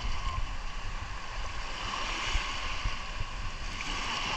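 Sea surf washing on the shore, a steady wash of breaking waves that swells and eases, with a low rumble of wind on the microphone.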